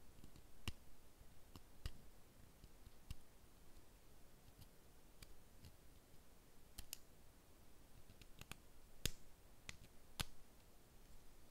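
Faint, irregular small clicks and taps, about a dozen spread unevenly, from nail tools and plastic nail tips being handled and set down.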